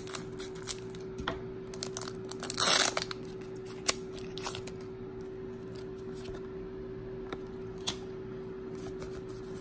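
A foil Pokémon booster pack wrapper crinkling and being opened. The loudest part, a short rip-like burst, comes about two and a half seconds in. A sharp click and a few light clicks and rustles of the cards being handled follow.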